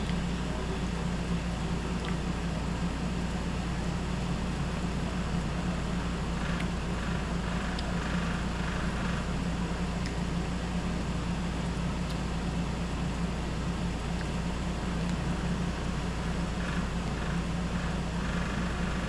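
Window air conditioner running with a steady low hum and fan noise, with a few faint clicks of a fork on a plate.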